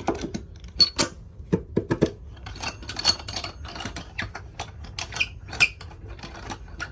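Hard workshop parts being handled, with a scatter of sharp clicks, clinks and light knocks. The loudest knocks come about one to two seconds in.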